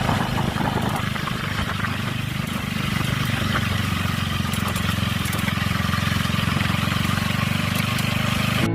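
Yamaha XMAX 300 scooter's single-cylinder engine idling steadily, with a rattle that the owner traces to an aftermarket aluminium mudguard knocking against the engine.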